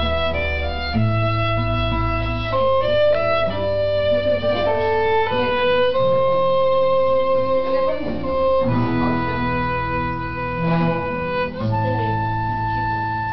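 Violin playing a slow melody of long, held notes, with low sustained bass notes of an accompaniment underneath.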